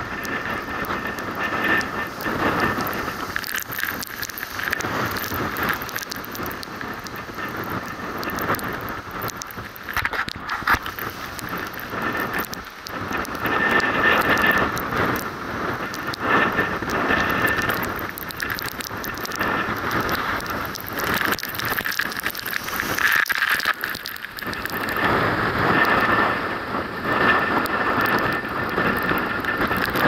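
Storm at the sea's edge: gale-force wind and breaking waves washing over rocks, with rain and spray crackling against the microphone. It swells louder about halfway through and again over the last few seconds.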